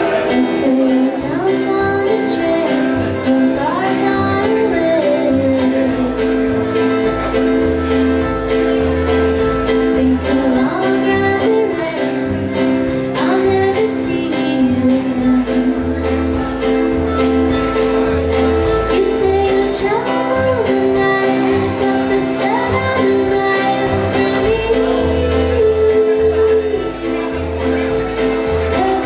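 Small acoustic folk band playing live: a woman singing over acoustic guitar, accordion, upright bass, a small plucked stringed instrument and a snare drum. Low bass notes come in about six seconds in.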